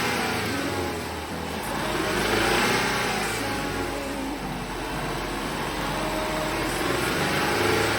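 Turbocharged EJ20 flat-four of a Subaru Legacy BP5 running, its revs rising and falling a few times. The engine still gives the カラカラ rattle that a new PCV hose has not cured, which the owner suspects is knocking caused by ignition timing or the spark plugs.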